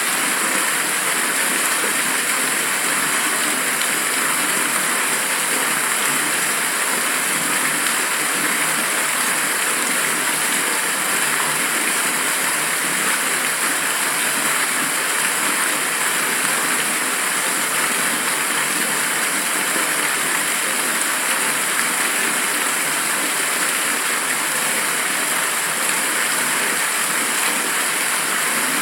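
Steady rushing-air hiss, loud, even and unchanging, bright and thin with almost no low rumble.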